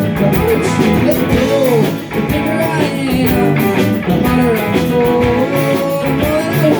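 Live rock band playing an instrumental passage: a lead guitar bends notes over bass, drums and cymbals.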